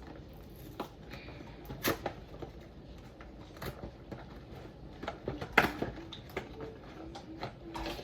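Plastic food packaging of a Lunchables pizza kit being handled: scattered crinkles and short clicks, with two sharper snaps about two seconds in and a little past halfway.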